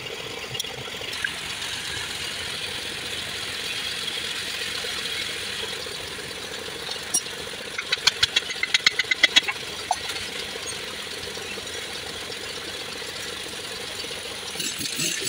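Hammer driving a chisel-like tool against the side cover of a Hino six-cylinder diesel engine block to break it loose: a quick run of about a dozen ringing metal blows about eight seconds in. A steady engine-like hum runs underneath.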